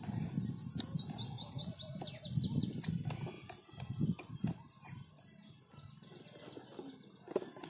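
A small bird singing a fast run of short, falling whistled notes, about five a second. A fainter second run comes after a pause of about two seconds, over low rustling and handling noise with a few sharp clicks.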